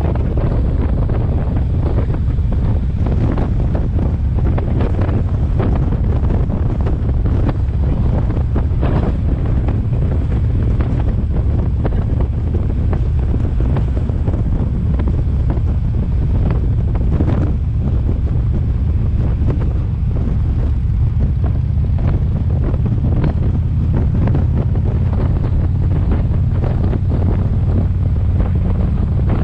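Steady wind and road noise from a moving car: a heavy low rumble with a rushing hiss over it, with wind buffeting the microphone.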